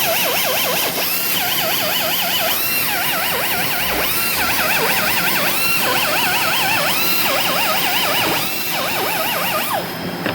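CNC machine running, its axis drive motors whining in a warbling pitch that rises and falls in a repeating cycle about every second and a half, over steady machining noise.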